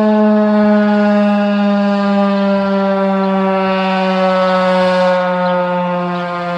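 Federal Signal 2001-130 outdoor warning siren sounding a steady alert tone, one loud tone rich in overtones whose pitch slowly falls as the rotor slows and the siren winds down.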